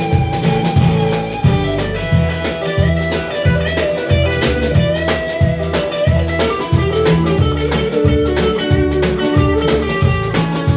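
Blues band playing an instrumental break: a guitar lead with sliding, bent notes over a drum kit and bass keeping a steady beat.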